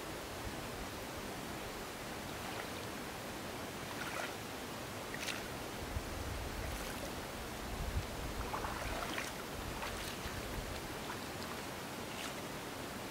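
Steady hiss of open water with a few short, light splashes here and there as a hooked fish works at the surface on the line.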